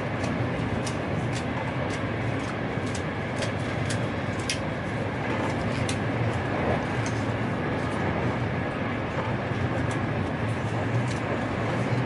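Frecciarossa high-speed train running: a steady rumble and hiss with scattered faint clicks.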